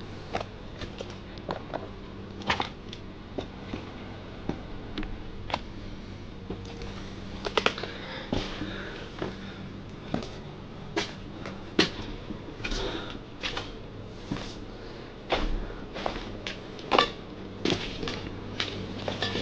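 Irregular clicks, knocks and scuffs of footsteps and handling noise while moving over a rubble-strewn floor and stairs, growing busier in the second half, over a steady low hum.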